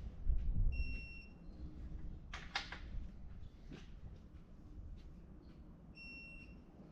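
Two short, high electronic beeps about five seconds apart, with a few sharp clicks between them.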